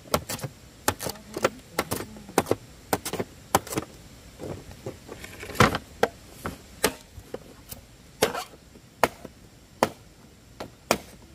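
A long blade chopping into green bamboo poles: sharp, irregular blows, about one or two a second, with a short pause in the middle.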